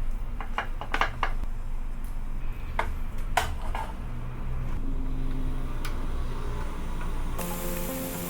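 Kitchen utensils clinking and knocking against cookware, a quick run of strikes in the first few seconds and one more near the end, over a low steady rumble. Background music comes in near the end.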